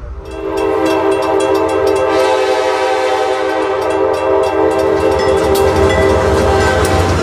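Train horn sounding one long steady blast that cuts off near the end, over the clicking of wheels on rail joints and a low rumble of a passing train.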